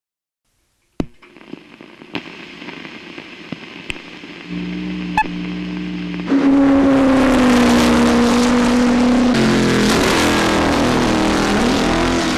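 Race car engine running at a steady note from about four seconds in. It becomes much louder about six seconds in and is held high, with a rising rev near the end.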